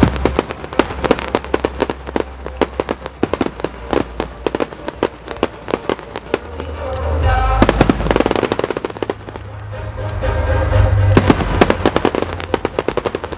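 Fireworks display: dense runs of sharp crackling and popping from bursting shells, many cracks a second, thickest about eight seconds in and again near the end, over a low rumble. Heard through a camera's built-in microphone.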